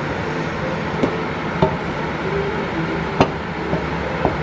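Pork belly sizzling in a hot dry pan as its fat renders out, with a few sharp clicks of a utensil against the pan.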